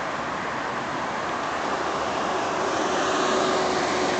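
Steady city street traffic noise, the hum of passing cars, swelling slightly about three seconds in.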